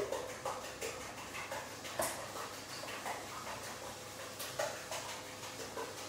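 Kitchen utensils at work: a fork beating eggs in a bowl and a wooden spatula stirring bacon in a frying pan, giving irregular light clicks and scrapes, with one sharper knock about two seconds in.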